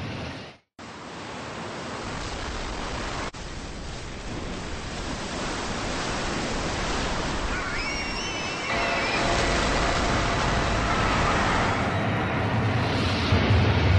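Film sound of a ship in heavy seas: a dense roar of rushing water and surf that builds in loudness, with a few high wavering glides about eight seconds in and a deep rumble swelling near the end. It cuts out briefly under a second in.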